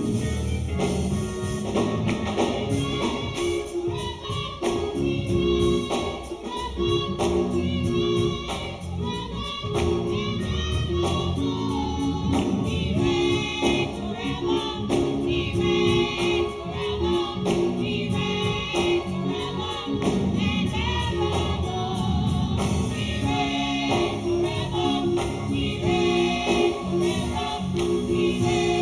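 Gospel song: a small group of voices singing together over instrumental backing with a steady beat.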